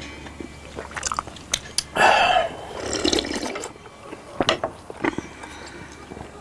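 People slurping and sipping a cold drink from glass bowls and a glass cup, with the loudest slurp about two seconds in. A few short clicks of a fork and glassware in between.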